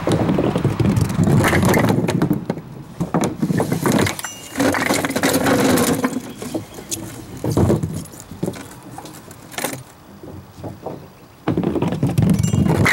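String pinsetter resetting small wooden bowling pins: the pins rattle and knock against one another and the wooden deck as they are pulled up on their cords and lowered back into place. The clattering comes in several loud bursts with a quieter stretch in between.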